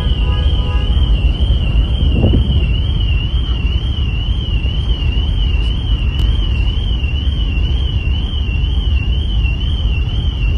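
Steady low rumble on the open deck of a ferry under way: wind buffeting the microphone over the ship's engine and wake noise. A thin, high warbling tone wavers continuously over it.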